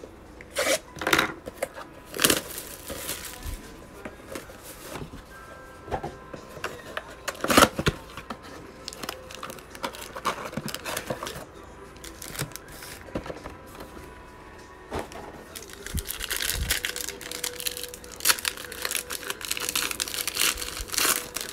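A cardboard trading card mega box being handled and opened, with scattered knocks and scrapes. In the second half a foil card pack is torn open, with a dense stretch of crinkling wrapper.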